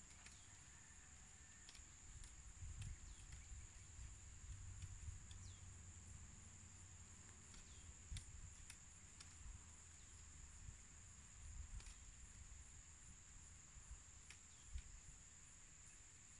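Faint, steady high-pitched drone of insects, with scattered sharp clicks and low rumbles.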